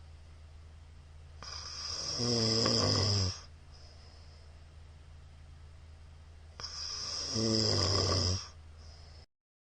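Middle-aged man snoring loudly in his sleep: two long snores about five seconds apart, each swelling in loudness over about two seconds and then stopping, with quiet in between. The sound cuts out briefly near the end.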